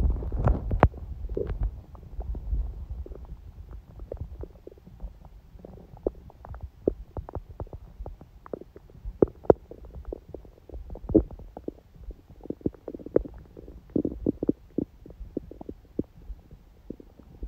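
A person's stomach gurgling: a low rumble in the first two seconds or so, then many short, irregular pops and gurgles of digestion.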